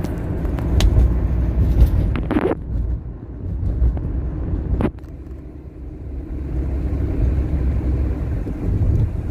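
Steady low rumble of a moving road vehicle, engine and road noise, with a few brief knocks or jolts, the loudest about two and a half and five seconds in.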